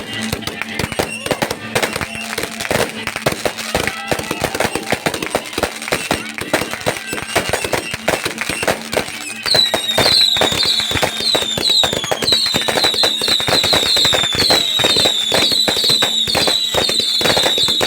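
New Year fireworks going off in a dense stream of pops and bangs. About halfway through it grows louder and repeated short whistles falling in pitch join in, about two a second.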